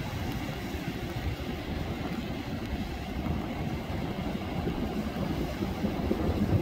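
Ocean surf: waves breaking and washing up the beach in a steady low rumble.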